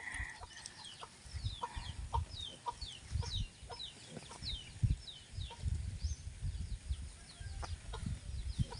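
Chicken chicks peeping: a steady run of short, high, falling peeps, several a second, over irregular low thuds.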